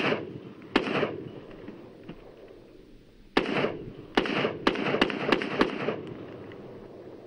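AR-15 rifle firing .223 rounds in semi-automatic: a shot right at the start and another under a second later, then after a pause of about two and a half seconds a quicker string of six shots roughly half a second apart. Each shot trails off in a long echo.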